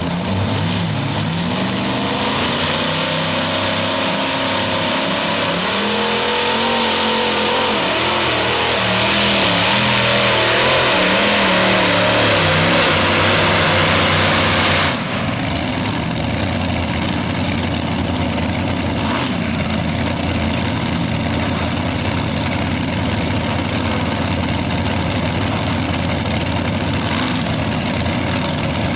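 Modified pulling tractor's several supercharged engines at full throttle under load, pitch wavering and loudness building as it drags the sled. About halfway through, the sound cuts abruptly as the pull ends, and the engines run on at a lower, steady level.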